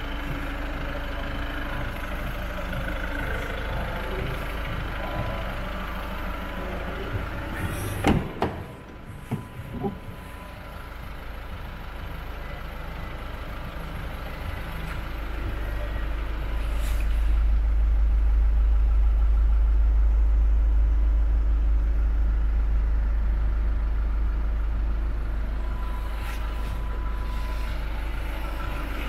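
A 2016 Volkswagen Caddy van's engine idling with a steady low rumble. A few sharp knocks come about eight to ten seconds in, and the rumble is louder and deeper from about sixteen seconds on, heard from inside the cab.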